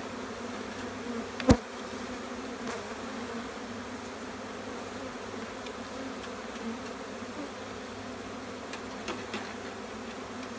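Honey bee swarm buzzing in an open hive box, a steady low hum. One sharp knock about a second and a half in.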